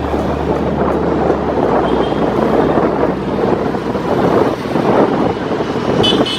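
Moving-vehicle noise with wind buffeting the microphone, a steady rushing sound; a low steady hum fades out in the first second and a half.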